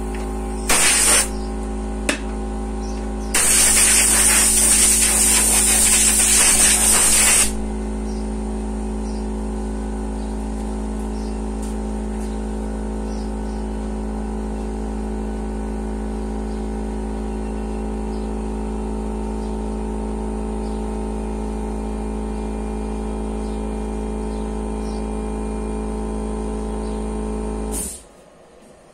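Homemade CNC machine's spindle motor running steadily with a hum and a high whine, with loud hissing noise briefly about a second in and again from about 3 to 7.5 s. The machine cuts off suddenly near the end.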